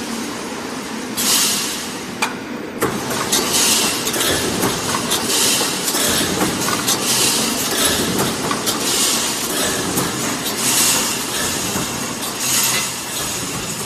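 Automatic wire mesh welding machine cycling: metallic clanking with a hissing burst from each welding stroke, repeating about every two seconds.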